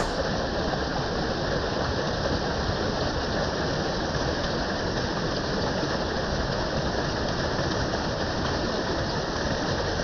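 Shallow, fast river water rushing over and around rocks at the bank: a steady, even rush of water noise.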